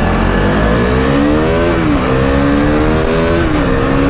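Motorcycle engine accelerating hard through the gears: its pitch climbs, then drops sharply at an upshift about a second and a half in and again at another upshift near the end, with wind rumble on the microphone.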